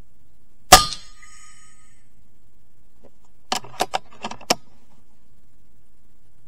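FX Impact MkII PCP air rifle firing once, a sharp crack with a brief metallic ring after it. About three seconds later comes a quick run of about six clicks, the rifle's side lever being cycled to chamber the next pellet.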